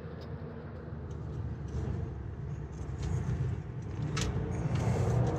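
Steady low rumble of machinery running, with a few faint ticks and one short click about four seconds in.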